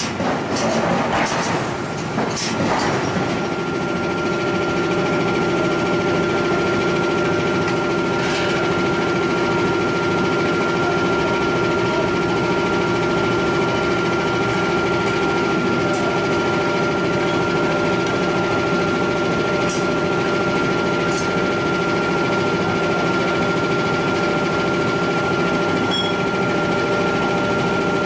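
Steady drone of forge machinery running, with a constant high whine. A few sharp metallic knocks in the first three seconds as long tongs handle a red-hot steel blank.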